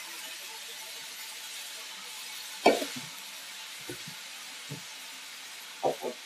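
Rice, chorizo and tomato sizzling in a hot frying pan as saffron water is poured in and stirred with a wooden spatula. A sharp knock comes about two and a half seconds in, followed by a few lighter knocks near the end.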